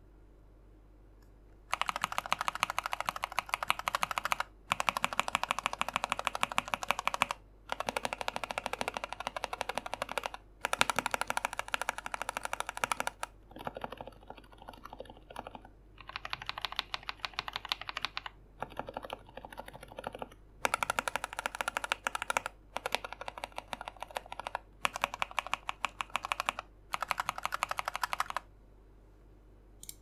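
Fast typing on an RK61 60% mechanical keyboard fitted with tape, PE foam and case foam mods. It comes in about a dozen runs of a few seconds each, with brief pauses between them. The key sound changes from run to run as different switches are tried, and the runs in the middle are quieter.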